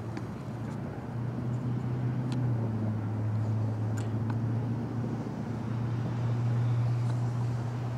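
Narrow-gauge steam train pulling away, heard as a steady low hum that grows louder from about a second in, with a few faint clicks.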